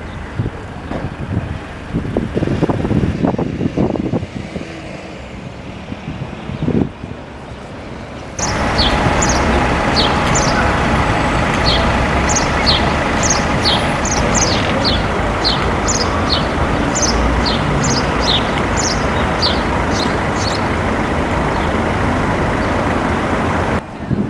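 Diesel buses running at a bus stop. About eight seconds in, a louder steady bus engine idle with a faint high whine takes over, and small birds chirp repeatedly over it.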